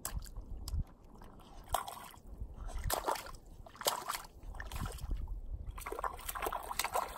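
A small child's feet in water shoes splashing and sloshing through ankle-deep lake water at the shore, a splashing step about once a second.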